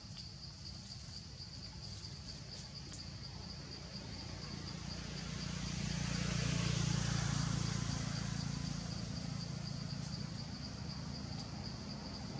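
Insects chirring steadily in a high, fast-pulsing tone. A low rumbling noise swells up around the middle and slowly fades.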